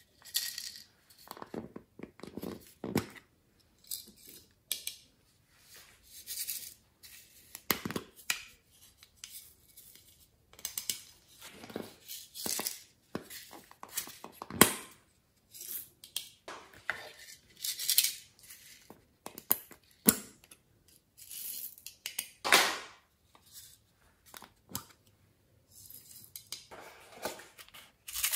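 Hands breaking up a painted craft cut-out over a glass dish: irregular crackling, rustling and tearing, with sharp clicks and taps.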